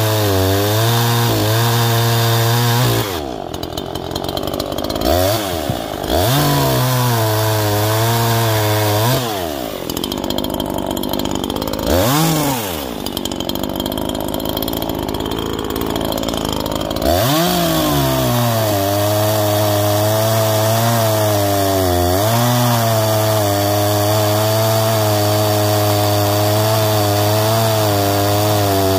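Neo-Tec NH843 two-stroke chainsaw cutting firewood logs at full throttle, dropping to idle with quick blips of the throttle between cuts, about three seconds in and again from about nine to seventeen seconds. Under load it is four-stroking, which the owner takes for a sign that it is set excessively rich on the high-speed jet.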